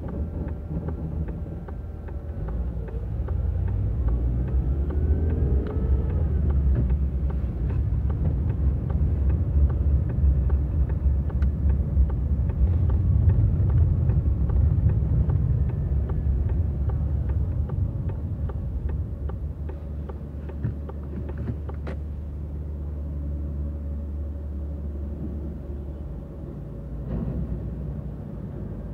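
Car engine and road rumble heard from inside the cabin as the car pulls away and drives on, growing louder as it gathers speed, then easing to a steady low hum as it slows near the end.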